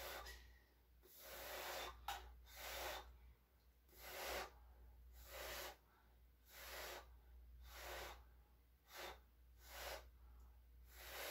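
A person blowing hard by mouth onto a puddle of wet acrylic pouring paint in repeated puffs of breath, about one a second, with short pauses between. Each puff is a breathy rush of air. This is the blowout step of a bloom pour, pushing the paint outward so it spreads and opens into cells.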